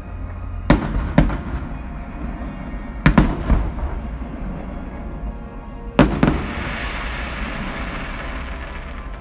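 Aerial fireworks shells bursting with sharp bangs: two about a second in, a cluster around three seconds, and another pair about six seconds in, after which a steady hiss hangs on. Show music plays faintly underneath.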